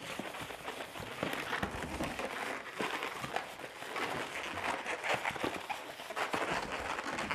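White latex twisting balloon squeaking and rubbing as it is twisted into a string of small bubbles, a run of short crackly squeaks.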